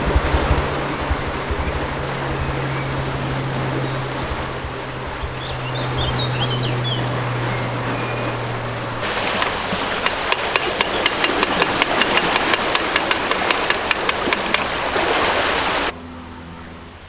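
Canal lock paddle gear being wound, its ratchet pawl clicking about three or four times a second over water rushing through the lock. A low steady hum runs under the first half, and a bird chirps briefly. The sound drops off abruptly near the end.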